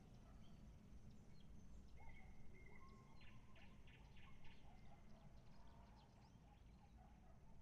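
Faint outdoor night ambience over a steady low rumble, with a bird singing: a held whistle about two seconds in, then a quick run of four or five repeated notes and some softer warbling.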